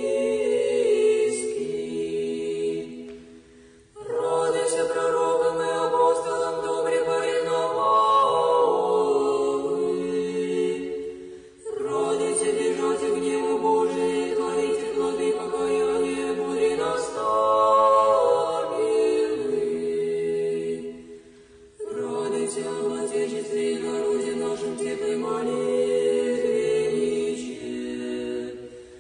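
Unaccompanied Orthodox church choir singing sustained chant in long phrases, with brief pauses about 4, 11 and 21 seconds in.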